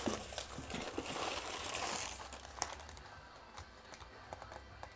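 Packing material crinkling and rustling as it is handled, loudest over the first two seconds or so, then fading into a few light clicks and taps.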